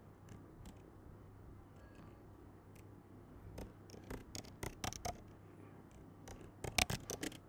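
Keystrokes on a computer keyboard: a few scattered taps, then quicker typing, ending in a fast run of keys near the end.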